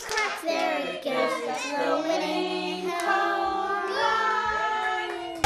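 A child singing with music behind, the voice holding long notes in the second half, then cutting off suddenly at the end.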